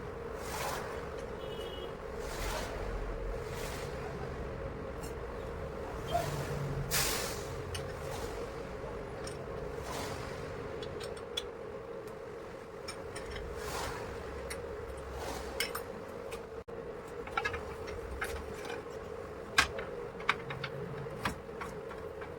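Scattered metallic clicks and knocks of hand work on a manual push grass cutter's metal parts, more frequent in the second half, over a steady hum.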